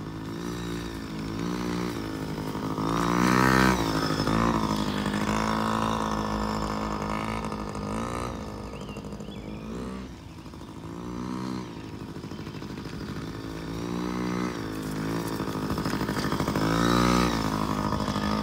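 Small kids' dirt bike engine running as it is ridden, its pitch rising and falling as the throttle is opened and eased off, highest about three and a half seconds in and again near the end.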